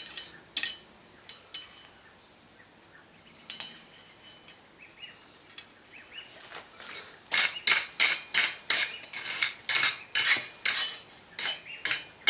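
Wire brush scrubbing the hot forged steel screw key, a run of brisk rasping strokes about two or three a second through the second half, after a few light metal clicks.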